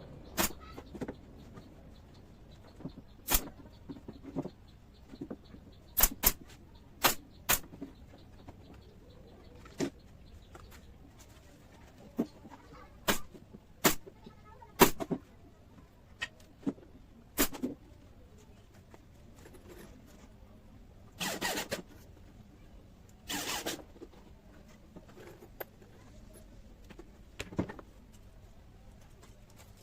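Irregular sharp knocks and clicks from wooden furniture parts being handled, with two short rasping noises about two-thirds of the way through.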